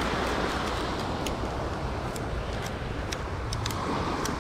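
Steady hiss of beach surf and wind, with a scattered run of light, sharp clicks.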